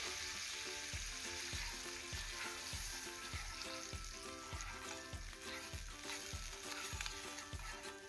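Tomato sauce sizzling in hot oil in a frying pan while a spoon stirs it, over background music with a steady beat.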